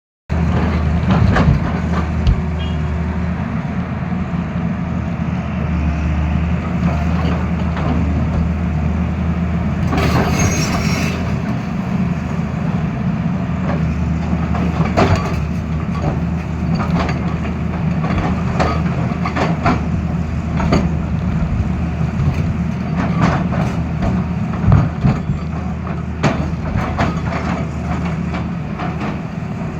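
Tata Hitachi excavator's diesel engine running steadily, with irregular knocks and clanks throughout and a short hiss about ten seconds in.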